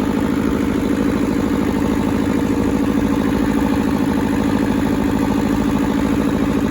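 Hinomoto E150 compact tractor's Toyosha diesel engine running steadily on hand throttle, warming up after a cold start.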